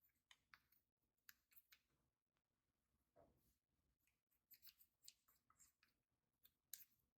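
Slime being kneaded and folded by hand, giving faint, irregular little clicks and pops.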